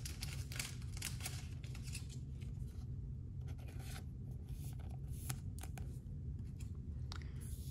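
Trading cards and a thin clear plastic sleeve being handled and peeled apart, giving scattered soft rustles and crinkles over a steady low hum.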